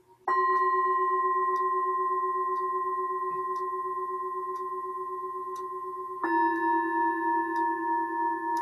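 Metal singing bowls struck one after the other. The first is struck just after the start and rings a clear, steady tone that slowly fades. About six seconds in a second, slightly lower-pitched bowl is struck, and the two ring together with a wavering beat.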